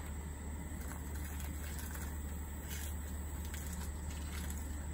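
A steady low rumble, with a few faint crackles as crushed eggshell is handled and dropped into a plastic bucket.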